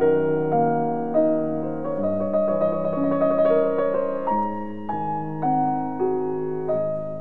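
Background piano music: a gentle melody of notes struck about every half second, each ringing and fading into the next.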